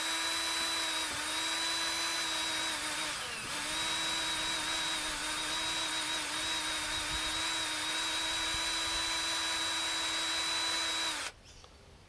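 Cordless drill running at a steady high speed, driving a screw-type honey pump that pulls honey from a flow frame. Its whine dips briefly about three seconds in, then cuts off abruptly near the end; the owner finds one of the brushes in the drill's motor has died.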